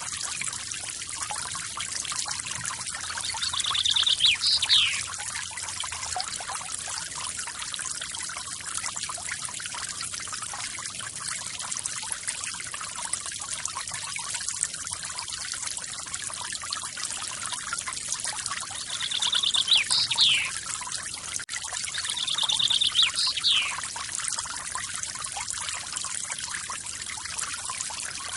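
Small forest waterfall splashing and trickling steadily. A bird calls three times over it, each call a short buzzy trill followed by a quick falling note.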